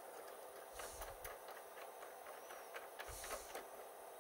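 Faint handling sounds as a drill bit is fitted into the lathe's drill holder: a few light clicks and soft knocks, in two short clusters about a second in and about three seconds in, over a faint steady hum.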